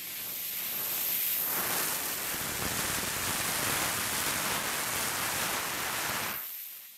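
A steady rushing hiss of broad noise. It swells in over the first couple of seconds, holds, and fades away about six seconds in.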